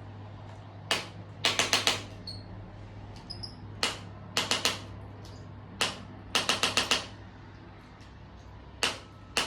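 Chiropractic impulse adjusting instrument firing against the patient's tight joints. Each cycle is a single sharp click followed about half a second later by a rapid run of four to six clicks. It happens three times, and a fourth cycle begins near the end.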